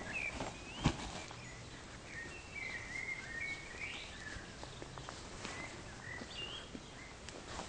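Quiet outdoor ambience with birds singing in short, gliding high-pitched phrases, and a single sharp thump about a second in.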